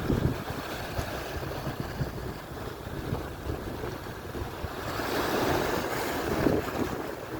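Atlantic surf breaking and washing up the shore, with a wave surging louder about five seconds in. Wind buffets the microphone with a low rumble.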